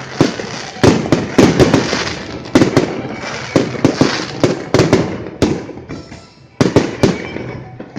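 Fireworks display: a rapid string of loud bangs from bursting shells, with a noisy crackling wash between them. The bangs thin out after about five seconds, and two more sharp bangs follow near the end.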